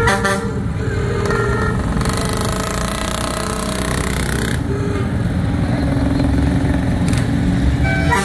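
Engines of motor vehicles rolling slowly past, a steady low rumble with a few held tones over it. A hiss lasts a couple of seconds in the middle.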